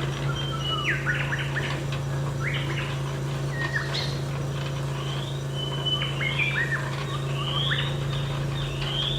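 Birds chirping continuously, many short rising and falling calls overlapping, over a steady low hum.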